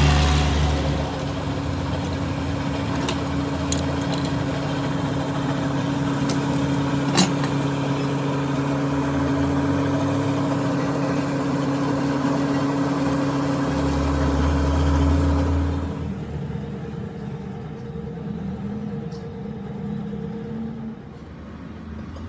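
Lathe motor running with a steady multi-tone hum and a single sharp tick about seven seconds in. The hum drops away about sixteen seconds in, leaving a quieter workshop background.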